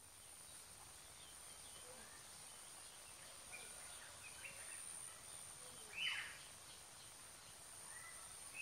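Outdoor ambience: a steady high-pitched insect drone with scattered short bird chirps, and one louder call sweeping downward about six seconds in.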